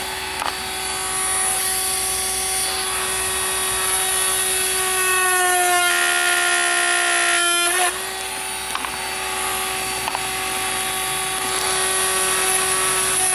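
Small high-speed rotary drill of the Dremel type running with a steady whine, its fine bit boring through hard 12 mm bait pellets. About six seconds in, a harsher grinding sound joins the whine for a couple of seconds as the bit cuts through a pellet.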